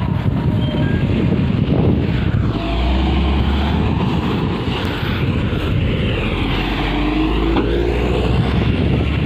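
Steady running noise of a vehicle moving along a dirt mine road, with a low rumble that deepens about two and a half seconds in and wind noise on the microphone.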